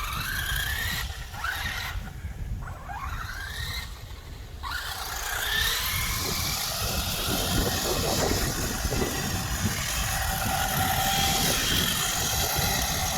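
Traxxas Stampede 4x4 RC truck's electric motor whining as it drifts on ice, rising in pitch several times as the throttle is blipped in the first few seconds, then holding a steadier whine over a hiss of spinning tyres.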